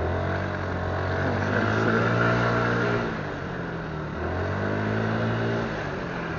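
Motorcycle engine accelerating through town traffic: the revs climb and hold for about three seconds, ease off, then climb again about four seconds in, over the hiss of surrounding traffic.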